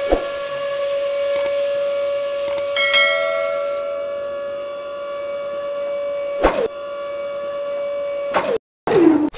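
Small electric motor of a homemade toy borewell drilling rig running with a steady high whine, with a brief falling swoop about two thirds through.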